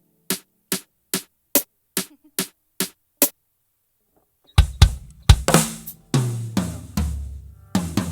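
A steady click, about two and a half beats a second, stops about three seconds in. After a pause of about a second, a close-miked acoustic drum kit is played hard: kick drum, snare and toms, with cymbal wash.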